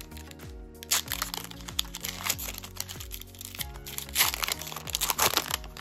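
A Pokémon card booster pack's foil wrapper being torn open by hand, crinkling and crackling in repeated bursts. Steady background music plays underneath.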